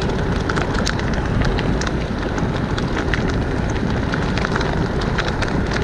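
Mountain bike rolling fast along a leaf- and grit-strewn asphalt road: a steady low rush of tyre and wind noise, peppered with many small irregular crackles and ticks.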